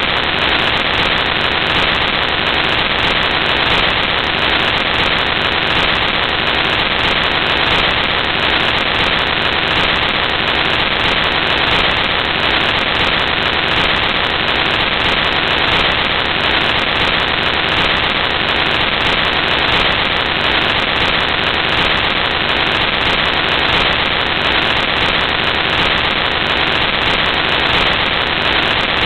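Loud, steady static hiss with no change in it, masking anything else on the soundtrack: a fault in the recording.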